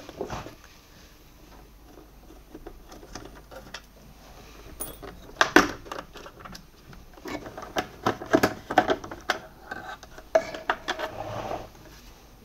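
Small clicks, taps and rattles of hands and a tool working on the plastic handle housing of a wet and dry vacuum cleaner, undoing the cable grip and its bolts. The clicks are sparse at first and come thick and fast from about halfway.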